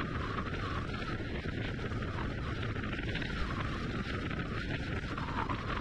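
Steady low rumble of a car driving along a road: tyre and engine noise at cruising speed.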